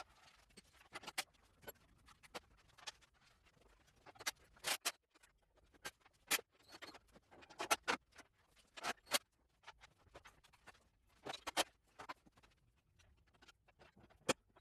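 Hand tools and loose metal parts clicking and clinking at irregular intervals while a garden tractor is being taken apart.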